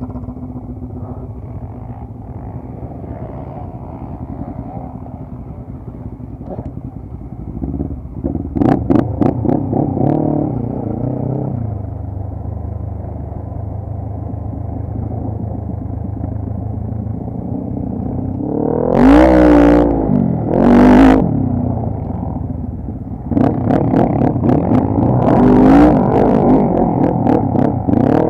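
ATV (quad bike) engines idling and being revved hard in bursts: the revs climb and fall about eight seconds in, two short hard blips come near the two-thirds mark (the loudest moments), and a rough, loud run of revving follows near the end.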